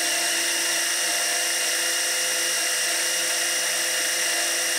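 Small 12-volt electric oil extractor pump running with a steady, even whine, sucking the last half inch of oil out of a bottle.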